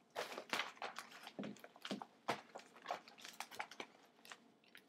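Crinkling and rustling of a plastic gift bag and its packaging as a hand rummages through it, in quick irregular crackles.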